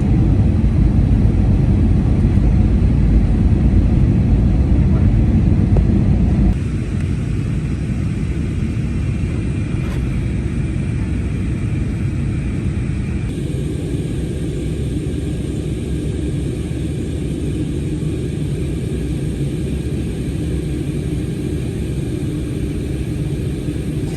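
Steady low rumble, with an abrupt drop in level about six seconds in and another sudden change about thirteen seconds in.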